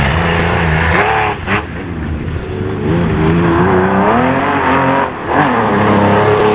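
Air-cooled flat-six engine of a historic Porsche 911 rally car at full throttle on gravel, revving hard. The pitch drops and climbs again at gear changes about a second and a half in and again about five seconds in.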